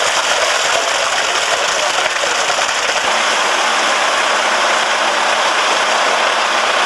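Concrete mixer truck running while wet concrete pours down its chute, a steady rushing noise, with a low engine hum coming in about three seconds in.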